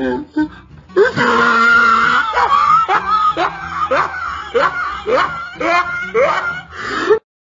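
A voice screaming in a string of short, rising cries, about two a second, that cuts off abruptly near the end.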